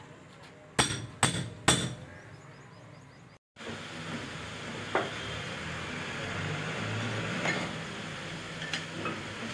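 Hammer striking metal: three sharp, ringing blows about half a second apart. After a short break comes a steady low background with a few faint metallic clinks.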